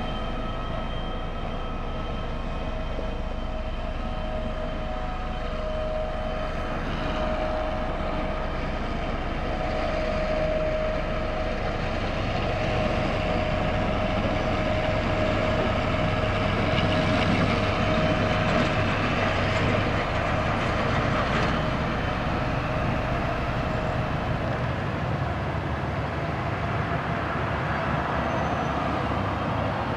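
Diesel engine of a single-drum road roller running steadily as it compacts the gravel road base, with a steady whine over the engine rumble.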